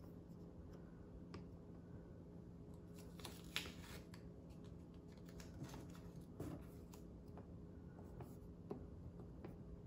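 Faint handling noise of hands pressing blue painter's tape and a plastic headlight template against a golf cart's plastic front cowl, with a short flurry of crinkling clicks about three and a half seconds in and scattered light clicks after it. A low steady hum runs underneath.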